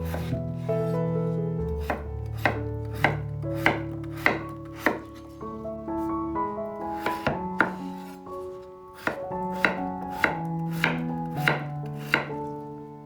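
Knife chopping on a cutting board in steady strokes about every half second, with a pause of a second or two midway, over background music with held notes.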